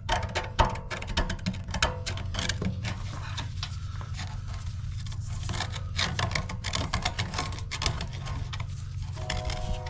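Water and sediment gushing out of an RV water heater's drain opening as the tank is flushed, over a steady low rush, with scattered clicks and rattles of debris. A few steady tones join near the end.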